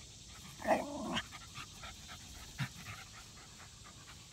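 Rat terriers at play: one gives a brief growl about a second in, then there is fast panting.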